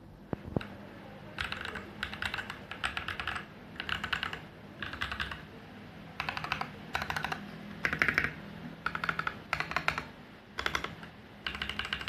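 Mechanical keyboard with tactile switches being typed on in short bursts of quick keystrokes, with brief pauses between the bursts. The switches are DA x AJAZZ Cocoon 50g tactile switches.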